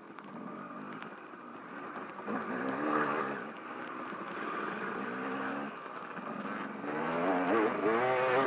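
Dirt bike engine under load, revving up and easing off through the gears, then climbing sharply in pitch near the end as it accelerates. A steady rush of wind noise runs underneath.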